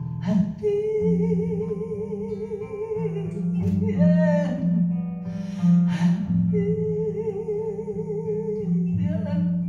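A woman singing two long wordless held notes with vibrato over an acoustic guitar's chords, with a few sharper strums between the notes.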